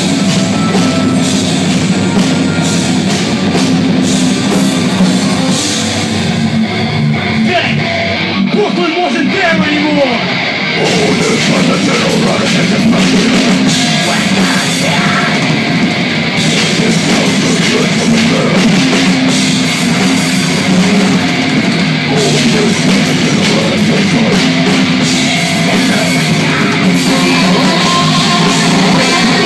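Heavy metal band playing live: distorted electric guitar, drums and synthesizer keyboard, loud through a club PA. About six seconds in the high end drops away for a few seconds, then the full band comes back in.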